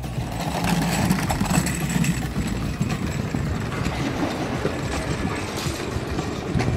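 Luge carts rolling down a concrete track, a steady rattling rumble of plastic wheels on the concrete.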